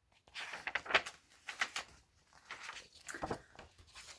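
Paper rustling and crackling in irregular bursts as the pages of a picture book are handled and turned.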